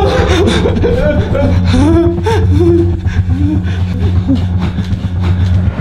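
A person's wordless voice making short sliding cries that rise and fall in pitch, over a steady low drone.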